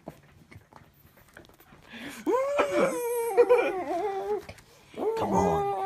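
A person's high-pitched, drawn-out wordless whining in two stretches, the first starting about two seconds in and the second near the end, with the pitch sliding up and down.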